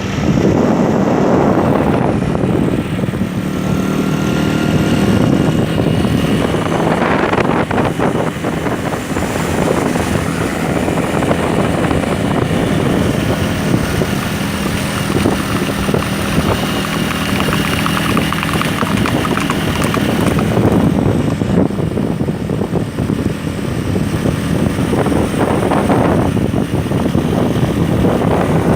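An engine running steadily, a continuous hum with a broad rushing noise over it.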